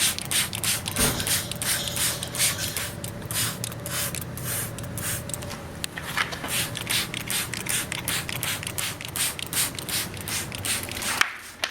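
Plastic trigger spray bottle of citrus cleaner being pumped over and over, a fast run of sharp spritzing squirts about four or five a second.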